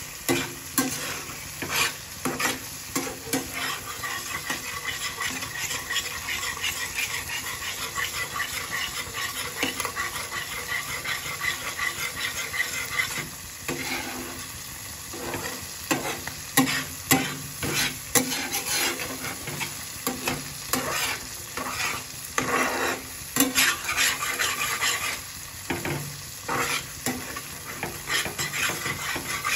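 Flat metal spatula scraping and knocking around a dark frying pan while thick paneer gravy sizzles and bubbles on the gas flame. The scraping comes in quick runs of strokes over a steady sizzle.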